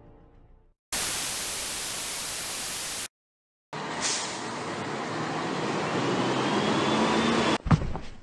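Static hiss sound effect: a two-second burst of white noise, a short silence, then about four seconds of hiss that swells slightly, with a faint hum and a faint rising whistle, ending in a sharp click.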